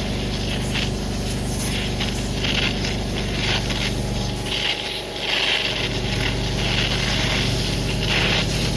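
Gas torch flame hissing as it heats a pinion bearing's inner race, the hiss swelling and fading several times, over a steady low hum.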